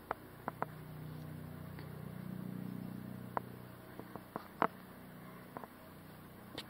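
A distant engine hums low and steady, swelling about a second in and fading again past the middle. Scattered sharp clicks and snaps sound over it, the loudest just past the middle.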